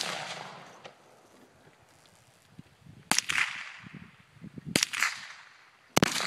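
AR-15 rifle firing three single shots, the first about three seconds in and the next two following at intervals of roughly a second and a half and then a second. Each sharp crack is followed by a fading echo lasting about a second.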